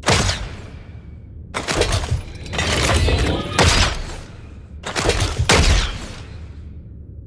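Compound bow and arrow sound effects: a series of sharp cracks and impacts, each with a short ringing tail, about six over several seconds with gaps between them.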